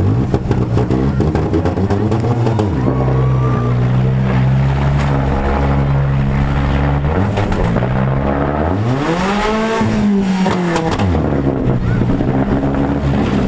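Compact demolition derby car engines running hard. One revs up and falls back about two-thirds of the way in.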